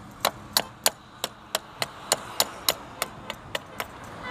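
Rapid, evenly spaced sharp clicks, about three to four a second, keeping a steady pace throughout.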